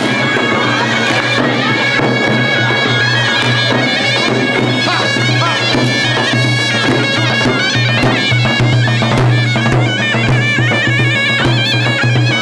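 Live Armenian folk dance music. A double-reed pipe plays a loud, ornamented melody over a steady drone, and a dhol beats out a regular rhythm.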